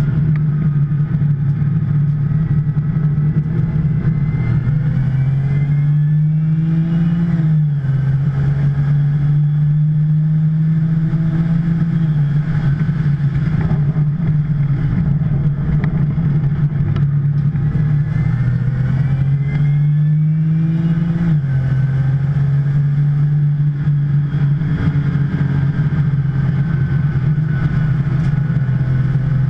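Porsche 911 Turbo's twin-turbo flat-six running hard at racing speed. Its pitch climbs slowly with the revs and drops sharply at two upshifts, about seven seconds in and again about twenty-one seconds in.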